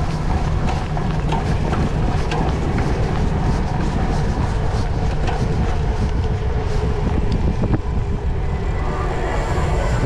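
Wind rumbling on the microphone and the rattle of a cyclocross bike rolling over dirt, brick paving and wooden boards, with frequent small clicks and knocks from the bike and camera mount.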